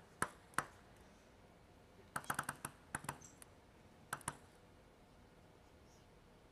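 Light clicks of a table tennis ball striking the table or a bat: two single ticks near the start, a quick run of ticks about two seconds in, then a few scattered ticks.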